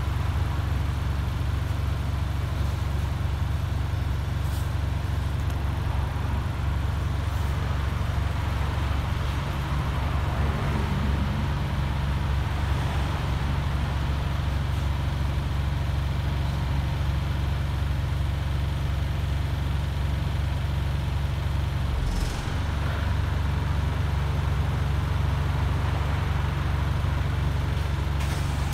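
Wright StreetLite single-deck bus's Daimler diesel engine, heard from inside the passenger saloon: a steady low drone as the bus runs. About three-quarters of the way through, the drone briefly dips and there is a short hiss.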